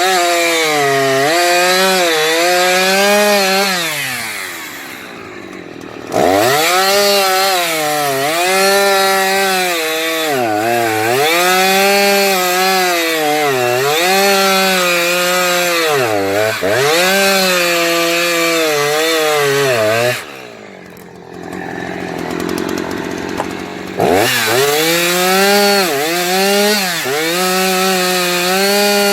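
Husqvarna 357XP two-stroke chainsaw cutting through wood at full throttle, its engine pitch sagging and recovering again and again as the chain loads up in the cut. Twice, about four seconds in and about twenty seconds in, it drops back toward idle before being revved straight back up.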